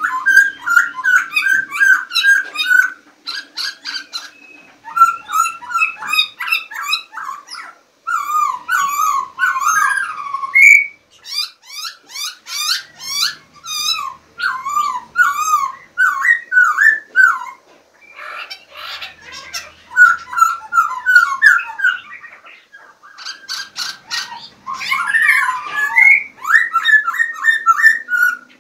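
Songbirds singing: long phrases of fast warbling, trills and whistled gliding notes, broken by short pauses every few seconds.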